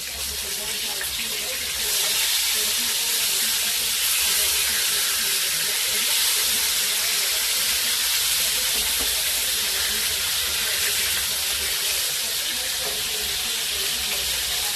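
Food deep-frying in hot oil: a steady sizzle that gets louder about two seconds in.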